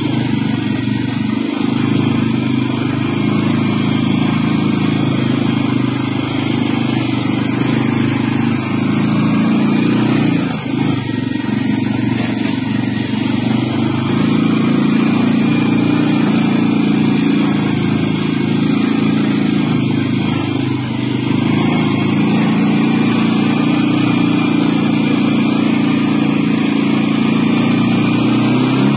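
CFMoto CForce 600 ATV's single-cylinder four-stroke engine running steadily while the quad is ridden, heard close up from the rider's seat. The throttle eases briefly about ten seconds in.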